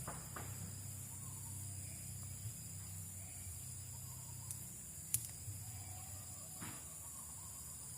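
Faint outdoor ambience with a steady high-pitched insect trilling and a low hum, broken by a few soft clicks, the sharpest about five seconds in.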